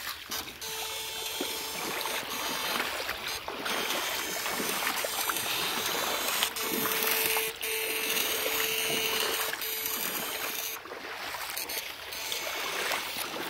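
Shallow river water rushing over stones and splashing around wading legs, with a steady hum held through much of the clip.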